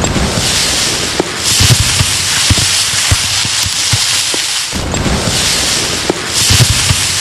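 Explosion sound effect: a loud, dense crackling blast with many sharp low booms scattered through it, starting abruptly and repeating about every five seconds.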